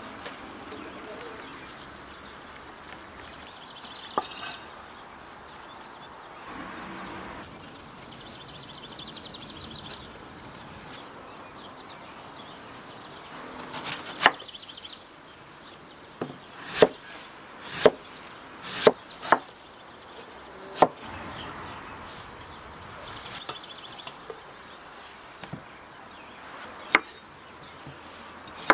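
Large cleaver-style kitchen knife chopping vegetables on a wooden cutting board: a run of about seven sharp knocks in the second half, and one more near the end. Birds chirp in the background.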